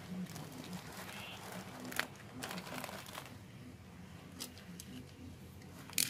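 Hands handling a cardboard parcel wrapped in clear plastic: the wrap crinkles and rustles under the fingers, with a sharp click about two seconds in and a louder one near the end.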